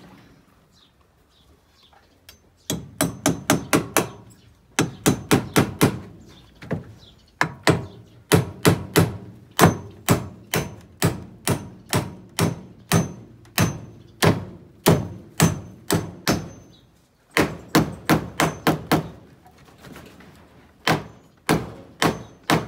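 Hammer driving nails into wooden shed rails. It strikes in runs of quick blows, about two to five a second, with brief pauses between runs, and some blows ring faintly.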